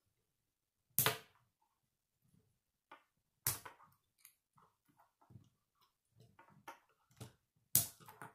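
Plastic K'nex rods and connectors snapping and clicking together as a model is assembled by hand. Three sharp snaps stand out, about a second in, at three and a half seconds and near the end, with smaller clicks and plastic rattles between them.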